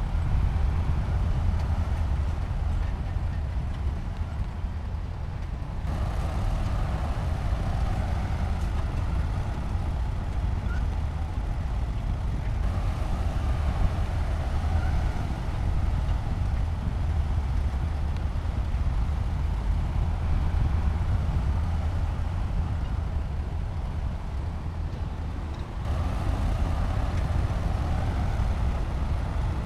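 Diesel engine of heavy earthmoving machinery running steadily under load: a continuous low rumble, with a higher mid-pitched layer that comes and goes and a few abrupt shifts in the sound.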